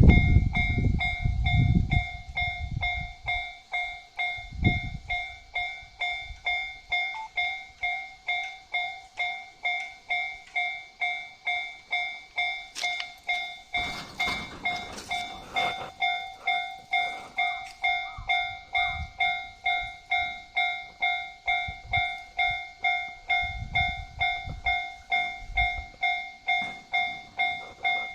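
Japanese railway level crossing's electronic warning bell ringing steadily, a two-tone chime pulsing about twice a second. A low rumble in the first couple of seconds and a rushing burst of noise about halfway through.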